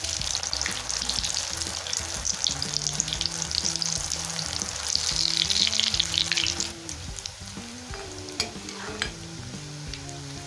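Spinach and besan pakora batter deep-frying in hot oil in a kadhai, a dense steady sizzle. The sizzle swells over the first two-thirds and then eases to a lower level.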